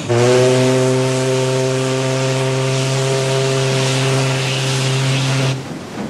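A paddle steamer's steam whistle blowing one long, steady blast with a rush of steam hiss, cutting off sharply after about five and a half seconds, as the steamer departs.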